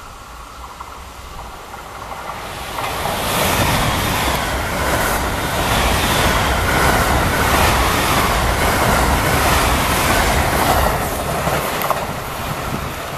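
An 11-car JR West 683 series limited-express electric train passing at high speed. Its wheels clatter over the rail joints in a quick, even rhythm. The sound swells in over the first few seconds, stays loud for most of the pass, and eases off near the end.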